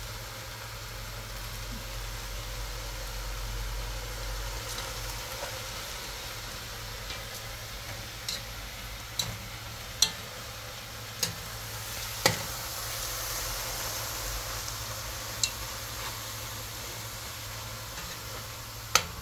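Frozen spinach and chicken pieces sizzling steadily in a hot pot while being stirred. A spoon clicks sharply against the pot several times in the second half.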